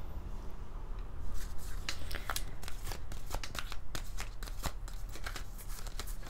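A deck of oracle cards being shuffled by hand: a quick, uneven run of card slaps and flutters that starts about a second in.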